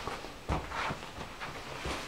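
Footsteps on a wooden parquet floor: a few uneven thuds, the firmest about half a second in and another near the end.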